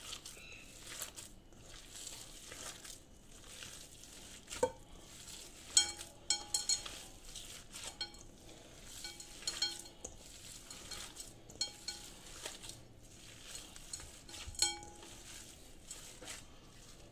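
Hands kneading minced meat for meatballs in a stainless steel bowl: soft squishing with irregular knocks against the bowl, which rings briefly several times.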